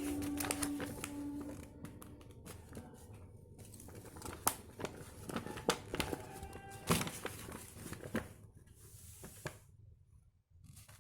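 Paper rustling and crinkling from the booklet being handled, pages turned, with scattered short rustles and clicks over faint background music.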